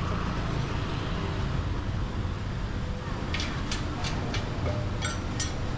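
Steady city street traffic rumble, with a few short sharp clicks or clatters about three to five seconds in.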